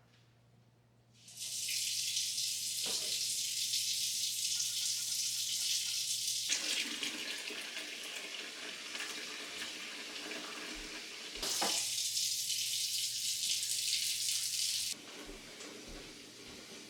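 Water running from a tap, a steady rush that starts about a second in. It turns fuller and deeper in the middle, then gets quieter near the end.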